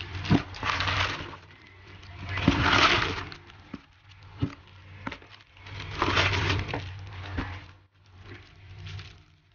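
Crinkling and rustling of cellophane-wrapped sticker sheets and washi tape packs being handled and shuffled, in swells every few seconds, with a few sharp clicks between them.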